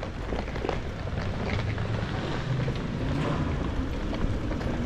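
Street noise: a steady low rumble of traffic with some wind on the microphone.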